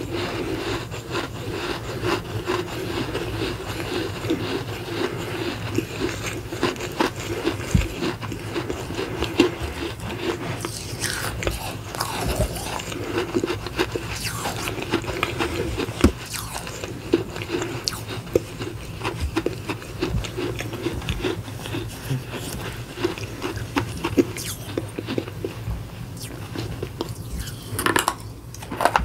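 A person chewing and crunching dry clay from small clay pots, with a dense run of small gritty crunches and a fresh bite near the end.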